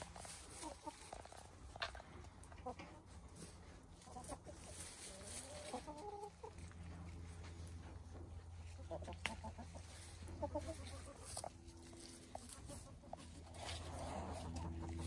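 Hens clucking softly on and off as they forage, with scattered short clicks of scratching and pecking in dry leaves and straw. A steady low hum runs underneath.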